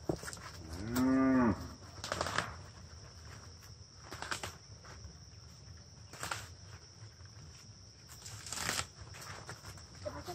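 A cow moos once, a rising-then-falling call about a second in. Then come several short rustles and snaps of leafy plants being stripped by hand, over a steady high hum of insects.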